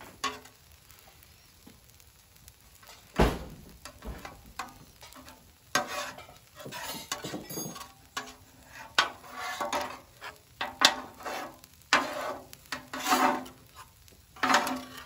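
Two metal spatulas scraping and chopping eggs on a flat-top griddle, the eggs sizzling underneath. It starts with a clank about three seconds in, then irregular scraping strokes about once a second.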